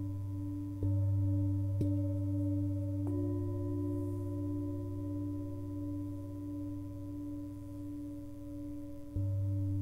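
Himalayan singing bowls struck with a mallet: one strike about a second in, another a second later, a third about three seconds in, and a louder one near the end. Each strike adds to a long, overlapping ring that pulses slowly as it sustains.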